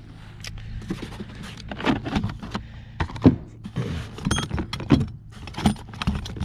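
Tools and plastic plumbing fittings clattering and clinking together as a hand rummages through a cardboard box of them: a quick, irregular run of knocks and rattles.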